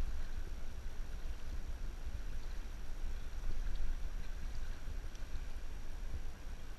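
Wind buffeting the microphone in a steady low rumble, over the hiss of a river flowing close by.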